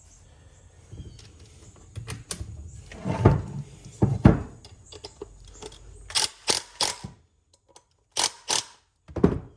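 A new bit being fitted to a drill: a series of separate clicks and knocks, with a couple of heavier thuds in the middle and a few sharp clicks near the end.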